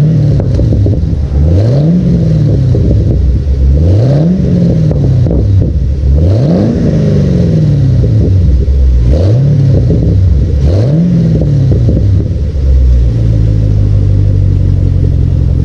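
A 2010 Chevrolet Camaro SS's 6.2-litre V8 breathing through a newly fitted Borla S-Type muffler, revved five times from idle, each rev climbing and falling back. It settles to a steady idle near the end.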